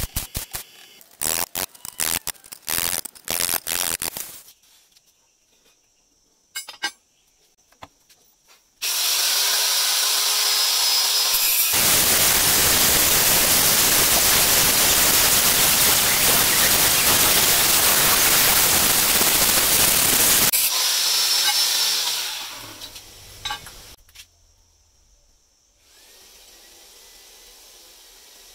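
A stick-welding arc crackles in uneven bursts for the first few seconds. About nine seconds in, an angle grinder spins up with a high whine and grinds loudly against a threaded steel bolt for about nine seconds. It is switched off and winds down with falling pitch.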